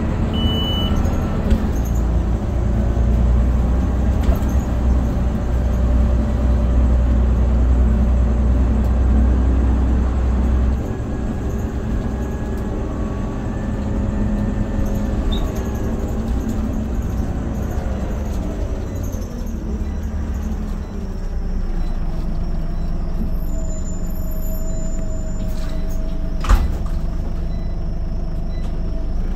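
Scania OmniCity single-deck bus heard from inside the passenger saloon: the diesel engine runs with a heavy drone, and its drivetrain whine rises and falls as the bus gets under way and slows. It then settles into a steady tone, with one sharp click a few seconds before the end.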